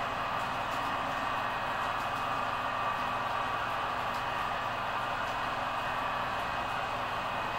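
Model V100 diesel locomotive standing with its sound decoder playing a steady diesel idle through its small speaker, an even engine hum with a faint high whine.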